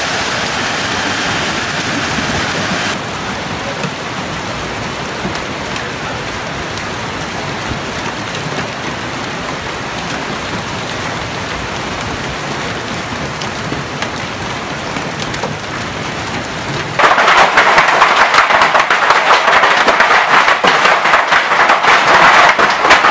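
Heavy hailstorm with rain: a steady rushing hiss of hail and rain, then, about seventeen seconds in, a much louder dense rattle of hailstones pelting down close by.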